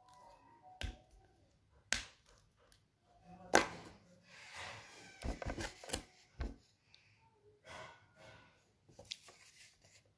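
Handling noise: a paper card rustling, with scattered clicks and knocks. The loudest knock comes about three and a half seconds in, and a quick run of taps and rustle follows a little later.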